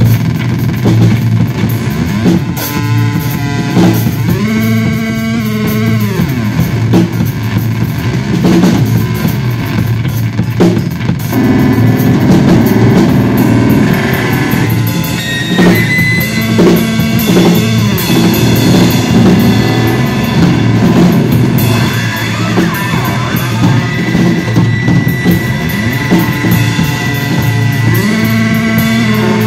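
Live bass guitar played through effects pedals, with a drum kit, playing loud instrumental music. The effected bass tones glide up and down in pitch a few seconds in and again near the end.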